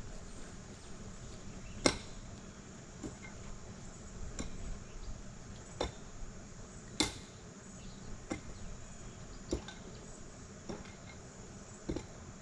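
Scattered light clicks and knocks at irregular intervals, the sharpest about two seconds in and about seven seconds in, over a faint steady insect hum.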